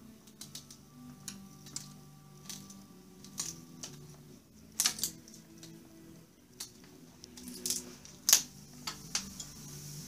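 Blue-and-gold macaw chewing a block of wood with its beak: irregular sharp clicks and cracks of wood splintering, with a loud double crack about halfway through and the loudest snap towards the end, over soft background music.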